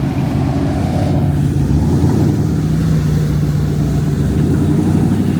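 A car engine running loudly at fairly steady revs.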